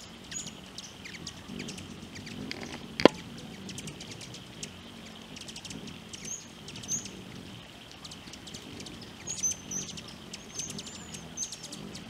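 Hummingbirds giving short, high chip notes again and again, with many quick ticks, over a steady high drone. A single sharp click about three seconds in is the loudest sound.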